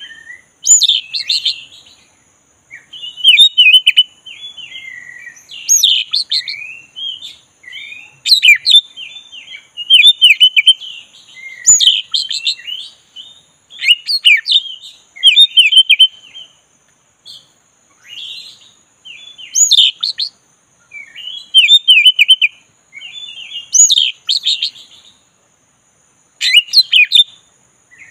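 Oriental magpie-robin of the black-breasted form singing: loud, varied whistled phrases with sharp sweeping high notes, repeated every couple of seconds with short pauses between.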